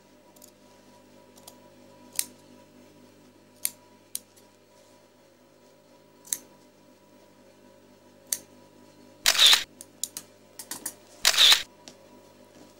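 Tailor's scissors snipping quilted jacket fabric in a handful of sharp, well-spaced clicks as the triangle at the end of a welt-pocket slit is cut. Near the end come two louder, rustling swishes as the quilted fabric is handled.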